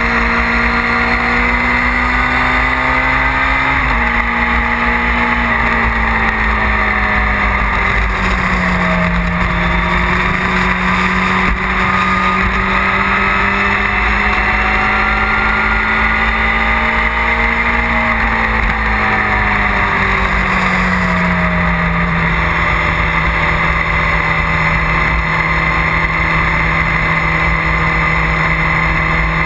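Motorcycle engine pulling at road speed, with heavy wind rush over the onboard microphone. Its pitch drops sharply about four seconds in as it shifts up a gear, climbs slowly as the bike gathers speed, then falls away again over a few seconds before holding steady.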